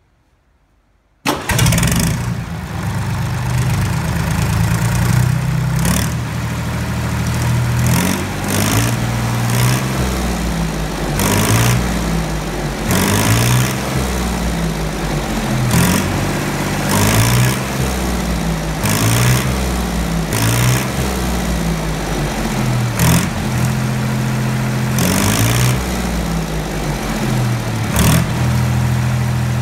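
Deutz F3L912 air-cooled three-cylinder diesel engine starting about a second in, catching at once, then running and being revved up and down over and over before settling back to a steady idle near the end.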